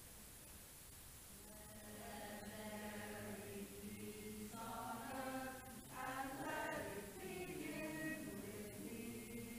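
A group of voices chanting together in long held notes, starting about a second in over a steady low held note.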